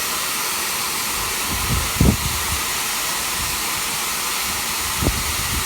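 Steam locomotive's safety valves blowing off: a steady, loud hiss of escaping steam, a sign of full boiler pressure while the train stands waiting. Two dull low thumps sound about two and five seconds in.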